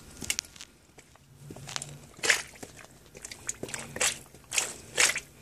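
Boots stepping on wet concrete paving slabs, a handful of uneven scuffing steps, with the sharpest ones about halfway through and near the end.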